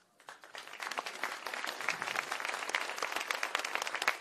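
Audience applauding: clapping starts just after the start, builds up over about the first second, then holds steady and dense.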